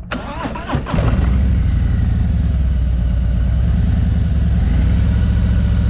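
Motorcycle engine rising in revs during the first second, then running loud and steady with a regular low pulsing as the clutch is let out.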